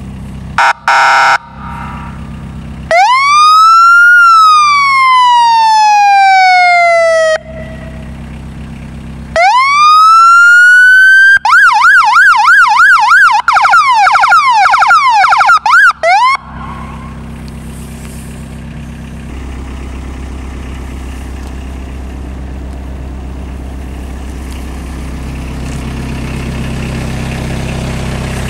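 Custom siren on a Mudd-Ox XL 8x8 amphibious ATV run through its tones: two short horn blasts, a wail that rises and then slowly falls, a second rising wail, then about five seconds of fast yelping that cuts off suddenly. The ATV's engine idles underneath and carries on alone afterwards.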